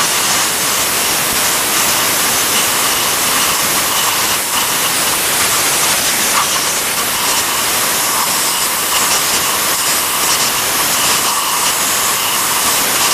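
Compressed-air blow gun blasting a loud, steady hiss, blowing water out of the hydroboost mounting area where the master cylinder fits.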